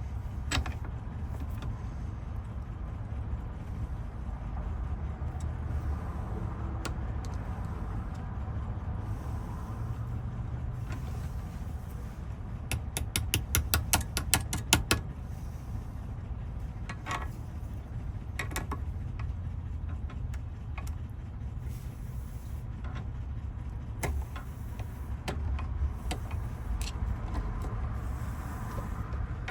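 A quick run of about fifteen light metal taps in two seconds, a little before halfway, with a few single clicks elsewhere, over a steady low hum. The taps come from hammering a bent part of a 1991–92 Chevy Silverado door lock.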